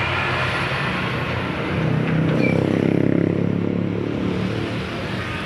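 A motor vehicle's engine running close by, swelling louder about two seconds in and easing off again about a second and a half later, as a vehicle passing.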